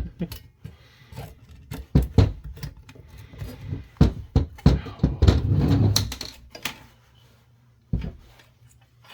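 Irregular clicks, knocks and clunks from handling and taking apart a metal-cased mobile car radio, with a busier stretch of rattling handling noise about four to seven seconds in.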